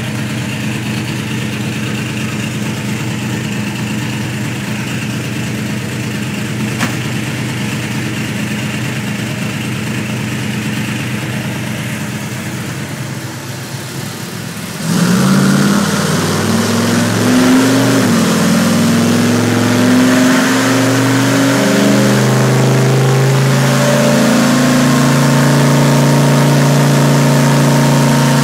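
347 small-block Ford V8 stroker in a Ford Ranger trophy truck, running on a chassis dyno. It runs steadily at a low speed, then about fifteen seconds in it is suddenly brought up much louder, its pitch climbing over a few seconds and then holding steady at a higher speed.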